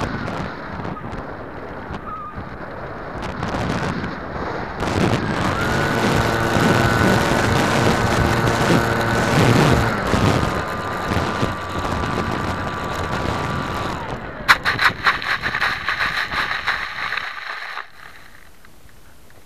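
Radio-controlled model's motor running with wind rushing over it, settling into a steady whine that drops to a lower pitch about halfway through and then cuts out. A few seconds of rapid rattling and scraping follow as the model comes down into dry grass, then it goes much quieter.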